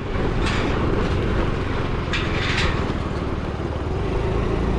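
Motor scooter rolling across the slatted steel deck of a suspension bridge: a steady, rapid rattling clatter from the tyres running over the steel slats, mixed with the running engine. Two brief hissing rushes come about half a second and two seconds in.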